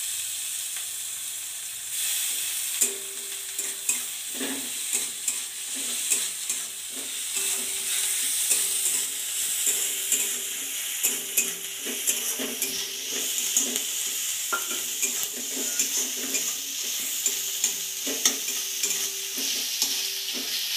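Onions, green chillies and ginger-garlic paste sizzling in oil in a metal kadai on a gas stove, with a metal spatula stirring and scraping against the pan in frequent short clicks.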